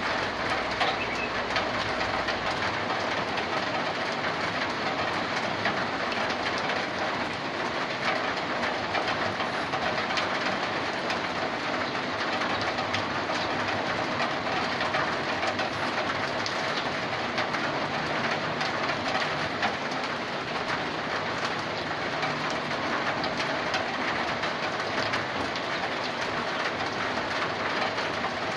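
Rainwater pouring from a roof gutter onto a corrugated zinc roof: a steady, dense spatter of many fine impacts on metal sheeting that keeps an even level throughout.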